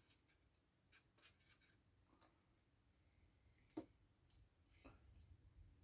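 Faint scattered clicks and light taps of small parts and tools being handled while reassembling an iPhone 6s, the sharpest click about four seconds in.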